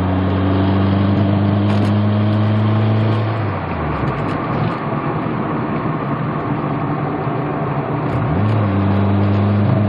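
2003 Mazdaspeed Protegé's turbocharged four-cylinder engine pulling hard under boost from inside the car: it climbs and holds a steady pitch for about three seconds, drops back, then pulls again near the end. The car is misfiring and hesitating under boost, which the driver calls 'definitely hesitation'.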